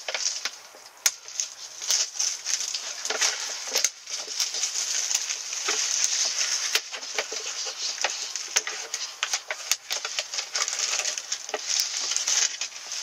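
Thin plastic film crinkling and rustling in quick, irregular crackles as the wrapping is peeled off a cup noodle and its packets are pulled out.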